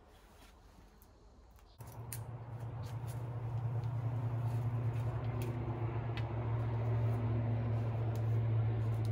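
A low, steady engine hum starts suddenly about two seconds in and grows louder, with a few light clicks over it.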